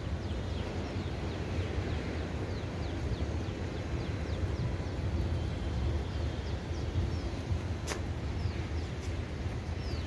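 Open-air rooftop ambience: a steady low rumble with many short, high, falling bird chirps throughout, and one sharp click about eight seconds in.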